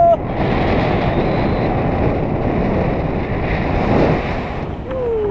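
Steady wind rushing and buffeting over the action camera's microphone in paraglider flight.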